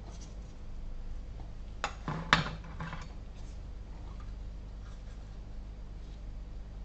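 Small tools and parts handled on a workbench: light scratching and a few sharp clicks about two seconds in, over a steady low hum.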